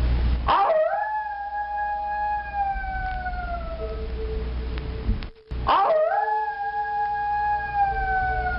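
Two long canine howls, each swooping sharply up into a long held note that slides slowly down; the second begins after a brief dropout about five and a half seconds in. A steady low hum runs underneath.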